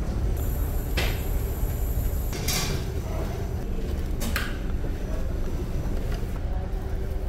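Steady low rumble of a ferry under way, with a few light clicks and rustles from metal serving tongs and plastic condiment packets.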